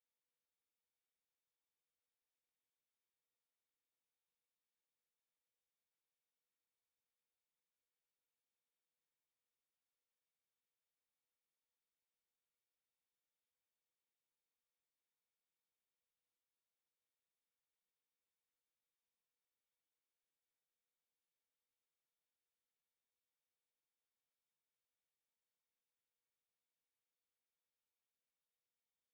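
A 7777 Hz sine-wave test tone: a single high-pitched pure tone held steady and loud without a break.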